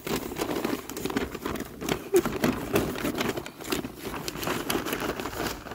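Dry leaves rustling and rattling as a lawn mower's grass-catcher bag is shaken out into a larger bag, a busy stream of irregular crackles and scrapes.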